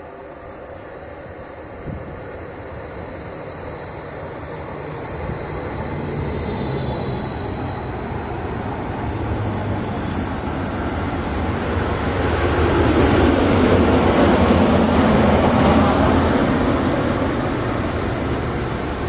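A Greater Anglia Class 755 bi-mode multiple unit, running on its diesel power pack, approaches and runs along the platform. Its engine hum and wheel rumble build steadily and are loudest about two-thirds of the way through as the carriages go by.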